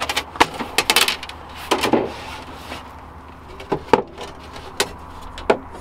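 Sheet-metal heat shield being handled and fitted together: a string of irregular sharp clicks and knocks, with a brief scrape about two seconds in and the loudest knock near four seconds.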